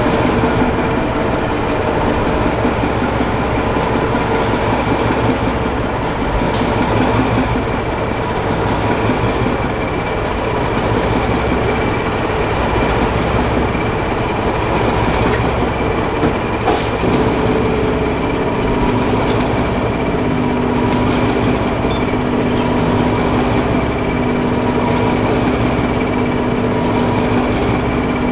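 British Rail Class 14 diesel-hydraulic locomotive running steadily on the line, its engine note changing about two-thirds of the way through. Two short clicks sound along the way.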